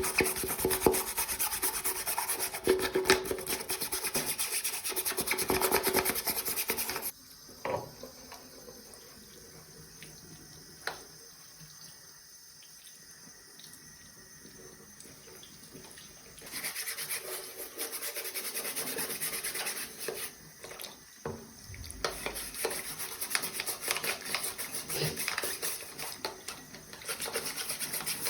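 Scrubbing and rubbing while parts of a coffee maker are cleaned, a dense scratchy noise that stops about seven seconds in, then returns in uneven spells after a quieter stretch of some nine seconds.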